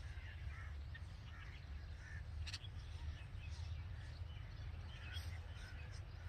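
Birds chirping in scattered short notes over a steady low background hum, with one sharp, short note about two and a half seconds in.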